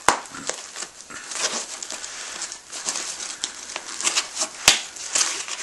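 Nylon webbing and tac-tie straps rustling and scraping as they are threaded through a pack's MOLLE loops, with two sharp clicks, one at the start and one about four and a half seconds in.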